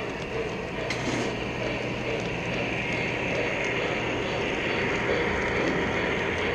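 Model trains running on three-rail track: a steady rolling rumble and rattle of metal wheels as a second train passes close alongside, over a steady low hum.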